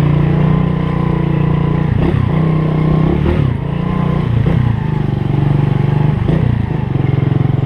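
Motorcycle engine running under way on a trail ride, its revs dropping briefly and picking up again several times.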